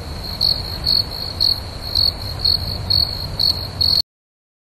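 Insects chirping, cricket-like: a steady high trill with louder pulses about twice a second. It cuts off suddenly about four seconds in, leaving dead silence.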